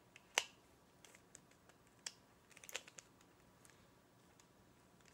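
Quiet, scattered clicks of a plastic Rubik's Cube's layers being turned by hand, the sharpest about half a second in.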